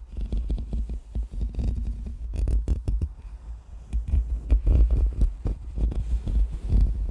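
Fast, irregular scratching and brushing directly on a microphone, with a heavy low rumble from the contact; it starts abruptly out of a moment of silence.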